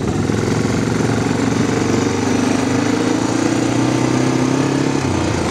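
Semi-automatic ATV engine running under way, its pitch climbing steadily as it accelerates, then dropping suddenly about five seconds in as the throttle comes off.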